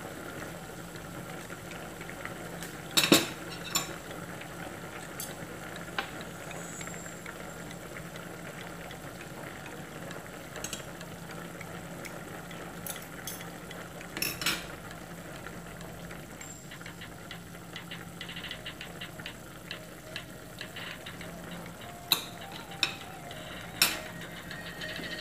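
A pot of chop suey simmering with a steady bubbling hiss, while a metal spoon and fork clink against the pot several times, loudest about three seconds in and twice near the end.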